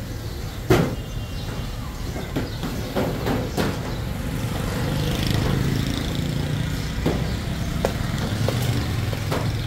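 Street traffic: a steady low engine rumble that swells in the middle, broken by several sharp knocks, the loudest about a second in.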